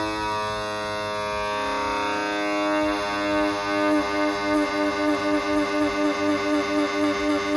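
Background music: a held keyboard or synth chord that begins to pulse about three times a second midway through.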